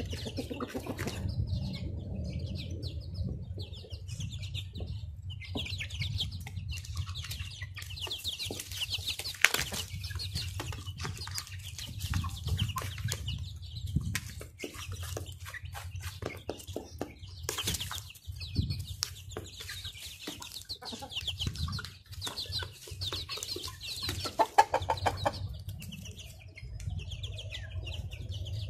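Young chickens clucking and peeping while they peck feed off cardboard: many quick taps and clicks, over a steady low rumble.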